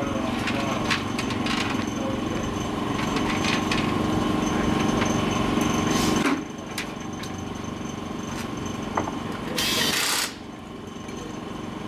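A small motor runs steadily for about six seconds and stops abruptly, followed near the end by a short, sharp burst of hiss.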